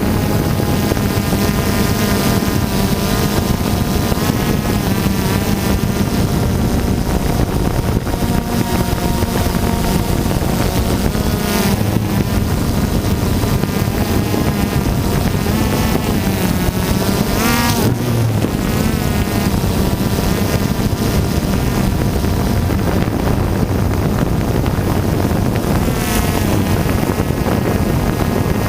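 Multirotor drone's propellers and motors whining steadily, with the pitch shifting up and down as it manoeuvres, most sharply twice around the middle, and wind on the microphone.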